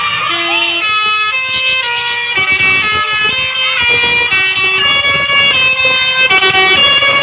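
Bus 'telolet' musical air horn playing a tune: a run of loud horn notes, each held about half a second, stepping up and down in pitch.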